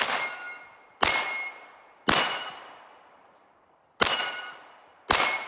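Five pistol shots from an STI 2011 DVC Open race gun with a compensated 5-inch bull barrel, about a second apart with a longer pause before the fourth. Each shot is followed by the ring of a steel Texas Star plate being hit, dying away.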